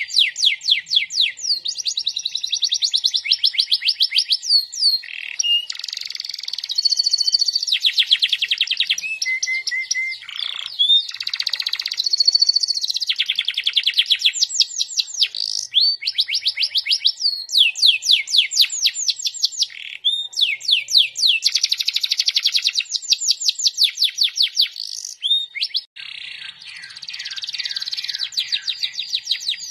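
Yellow domestic canary singing a long, continuous song of rapid trills: runs of fast, repeated, falling high chirps, phrase after phrase with only brief breaks.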